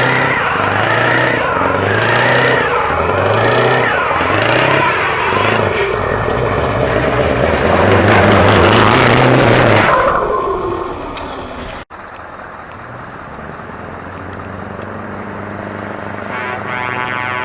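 Truck engine with an open, straight-piped exhaust revved up and down several times in quick succession, then held at high revs before dropping back. After an abrupt cut, an engine runs more quietly at low revs.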